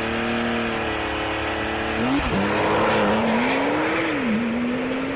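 Porsche 911 Turbo's turbocharged flat-six engine pulling hard at high revs, with a sharp break in the note about two seconds in like a gear change, then running on with small dips in pitch.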